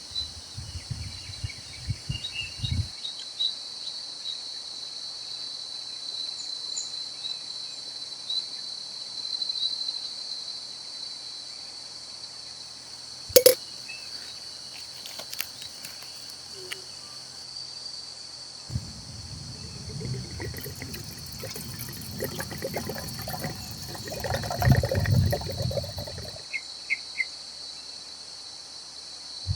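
Steady high-pitched chorus of insects. A single sharp click comes about halfway through, and a stretch of low rumbling and rustling comes near the end.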